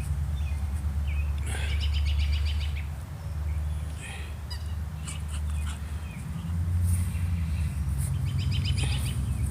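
Dog's squeaky toy squeaking in two runs of rapid squeaks, about one and a half seconds in and again near the end, as the dog bites down on it repeatedly. A steady low hum runs underneath.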